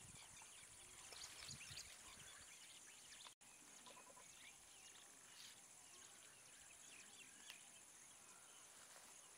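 Faint outdoor ambience: a steady high drone of insects with scattered short bird chirps, and some low rustling in the first couple of seconds. The sound cuts out for an instant a little over three seconds in.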